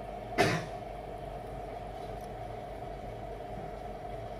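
Steady hum of workbench equipment, with a constant mid-pitched tone. A brief rasping noise comes about half a second in.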